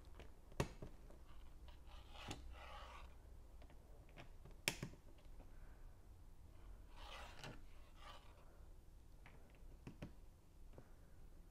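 Plastic Lego pieces being handled and pressed together: a few sharp clicks, the loudest nearly five seconds in, between soft rubbing and rustling of bricks under the fingers.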